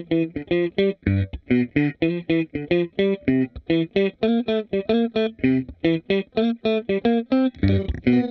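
Electric guitar played through a Seesaw V2 pitch-shifter pedal: a fast riff of short, clipped notes, about four to five a second. Near the end the notes run together into a fuller, more sustained sound.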